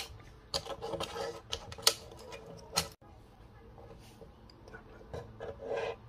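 Small clicks, crackles and rubbing from hands working a tablet blister pack and a hard ring-shaped dog treat on a wooden tabletop, with two sharp snaps about a second apart near the middle as a tablet is pressed out and pushed into the treat.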